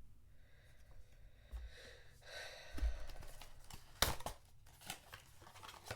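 Blind box packaging being opened by hand: paper and wrapper tearing and crinkling, with a sharp click about four seconds in and a few lighter taps after it.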